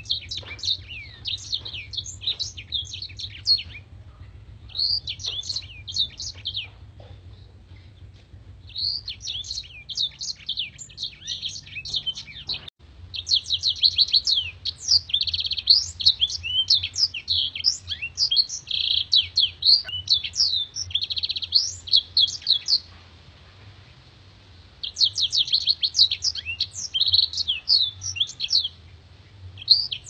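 Caged black-throated canary (blackthroat) singing long, rapid, high twittering song phrases with short pauses between them; the longest phrase runs about ten seconds from near the middle.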